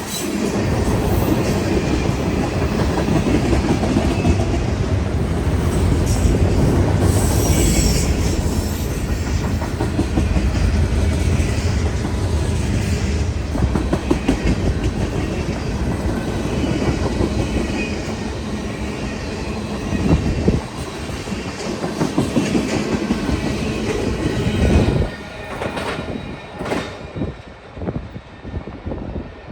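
A long freight train's cars rolling past, their wheels clacking over the rail joints in a steady rumble that drops away sharply about 25 seconds in as the last cars go by.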